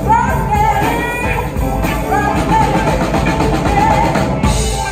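A live soul band plays with women singing at microphones, backed by drums, electric bass, electric guitar and grand piano.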